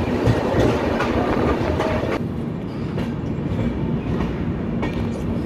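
Passenger train coaches running on the track, with wheels clacking over rail joints, heard from an open coach doorway.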